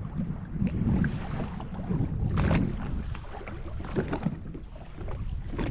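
Wind buffeting the microphone over a jetski at sea, with water slapping against the hull several times.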